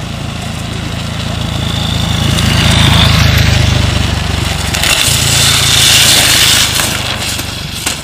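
Drift trike rear wheels, fitted with plastic sleeves, sliding sideways across asphalt: a scraping hiss that swells and fades twice, loudest about three and six seconds in. A steady low engine drone runs underneath.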